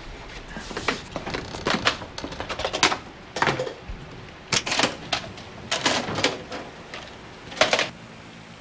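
Irregular clusters of sharp clicks and clacks from hard objects being handled, with a few louder knocks, stopping shortly before the end.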